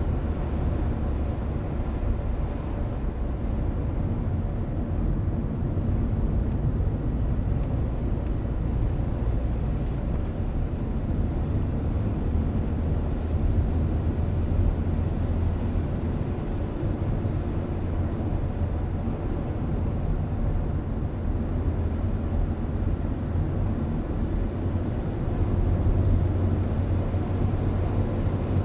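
Car driving at a steady pace, heard from inside the cabin: a constant low rumble of tyres on the road and engine, with a few faint ticks.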